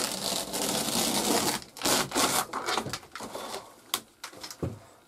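A knife blade scraping and rasping as it cuts along the seam of old vinyl-covered wall paneling. About two seconds in come a few louder rasps, then scattered knocks and rubbing as a wooden trim strip is pulled away from the wall.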